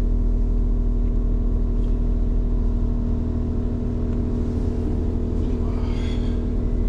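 Steady low hum of a stationary diesel train idling, heard from inside the passenger carriage. A brief faint higher sound comes about six seconds in.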